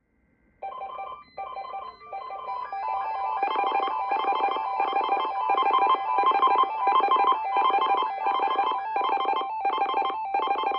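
Electronic emergency alert tones beeping in a repeating pulsed pattern, about two beeps a second, with further tones joining in over the first few seconds so that the sound thickens and grows louder.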